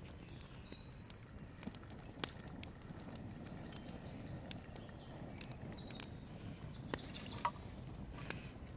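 Open wood fire burning under a large boiling pot: a low steady rumble with scattered sharp crackles. A few faint high chirps about half a second in and again near the end.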